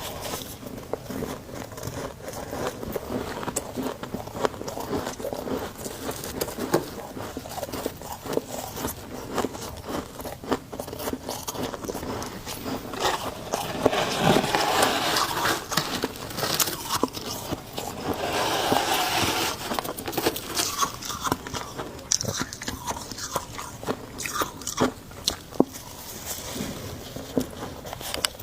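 Close-up ASMR of someone biting and chewing chunks of humidifier-freezer frost, with dense, irregular crunching throughout. The crunching grows louder and thicker about halfway through, and again a few seconds later.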